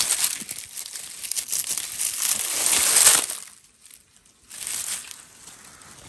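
Rustling and crunching of dry forest-floor litter (leaves, twigs and grass) being disturbed. It runs until about three seconds in, stops, then comes again briefly near five seconds.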